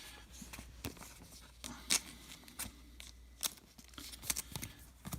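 Baseball trading cards being handled: faint scattered clicks and soft rustles as cards are slid and flipped, with a few sharper taps about two and three and a half seconds in.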